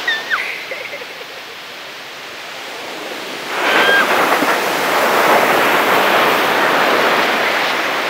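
Sea surf breaking and washing up a sandy beach, the wash easing for a few seconds and then surging loudly about three and a half seconds in as a wave's foam runs up the sand. Brief high squeals from a baby come at the start and as the wave rushes in.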